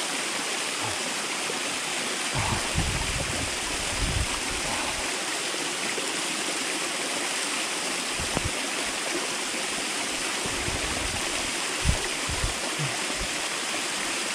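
Small waterfall splashing steadily down a rock face: a constant rush of falling water. A few short low thumps break in, the sharpest one about twelve seconds in.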